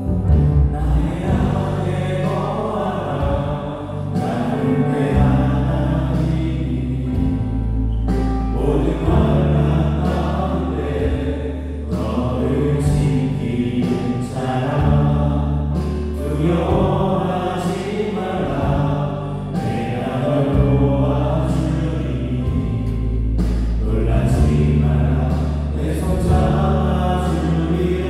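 Live worship band playing: electric guitar, bass guitar, keyboards and drums. The bass line holds a low note and moves every couple of seconds.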